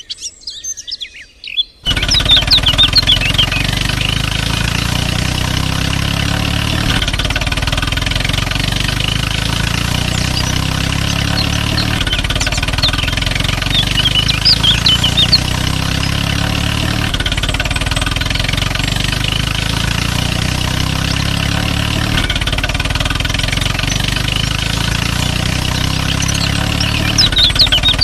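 Tractor engine running steadily with an even low throb, starting suddenly about two seconds in. A few bird chirps sound over it now and then.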